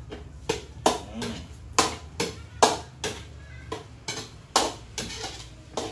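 Metal ladle clinking and scraping against a steel wok while stirring meat in a thin sauce: a run of sharp, uneven clinks, about two a second.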